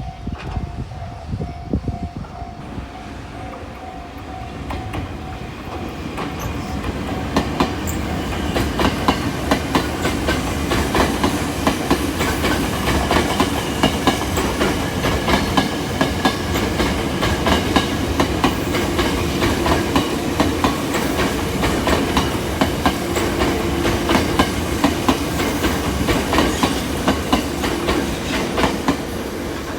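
Electric commuter train passing close by, its wheels clacking over the rail joints in a long run of regular clicks. It builds up over the first several seconds and stays loud to the end.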